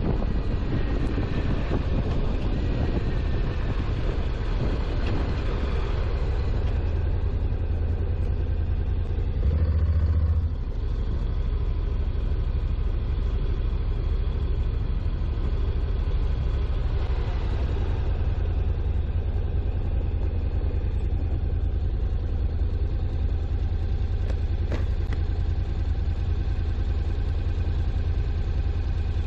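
On-board riding noise from a Honda CTX700N motorcycle: a steady low rumble of engine and wind buffeting, with a louder surge of low rumble about ten seconds in.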